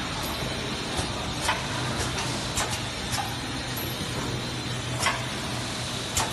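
Horizontal flow-wrap packing machine running as it wraps stacks of paper cups in plastic film: a steady mechanical hum with a faint high whine, broken by sharp clicks at uneven intervals, about half a second to two seconds apart.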